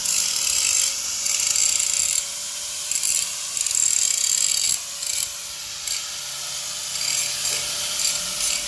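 Electric angle grinder running with a steady motor whine while its disc grinds over steel motorcycle chain and sprockets. The grinding hiss grows and falls away by turns as the disc touches and leaves the metal.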